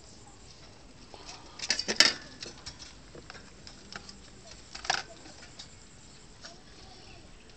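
Small dog in a wire cage eating dry food from a steel bowl: scattered light crunching clicks, with a sharp cluster of clatter about two seconds in and another near five seconds.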